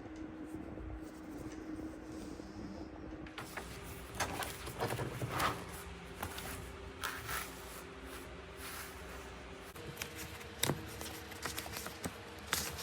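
Faint steady hum with scattered small clicks and taps of handling noise, the taps starting a few seconds in.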